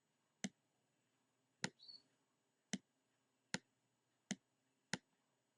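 Computer mouse clicks: six single clicks at uneven spacing of roughly a second, as colour stops are added to a gradient.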